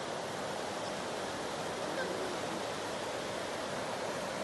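Steady rush of a shallow, rocky stream running over rapids.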